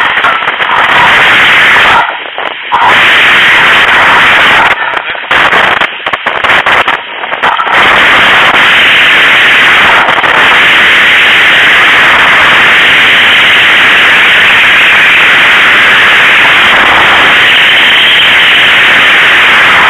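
Loud, distorted wind buffeting a camera microphone in paraglider flight, with a few sudden brief dropouts in the first eight seconds and then a steady rush.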